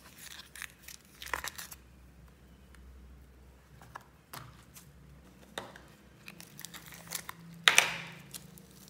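Slime being squeezed out of a clear plastic tub and pulled apart by hand in a plastic bowl: scattered sticky crackles and tearing pops. The loudest burst comes near the end, as a blue foam-bead slime is pulled up and stretched.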